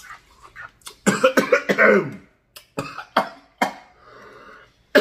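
A man coughs hard for about a second, then a few sharp wet mouth clicks and smacks as he takes another bite of food.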